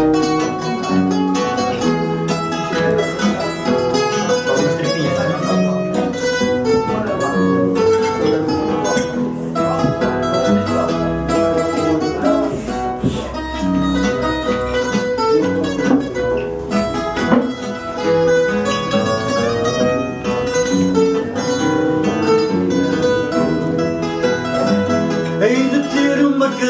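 Portuguese guitar and viola de fado (classical guitar) playing the instrumental introduction to a fado song, a bright plucked melody over guitar accompaniment.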